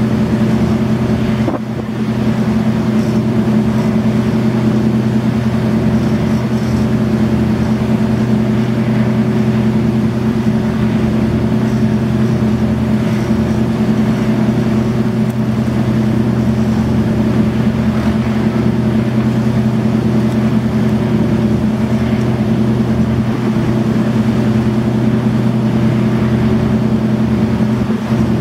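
Steady low drone of a marine diesel engine: a deep, even hum with a few constant tones over a wash of noise, holding level throughout apart from a brief dip about a second and a half in.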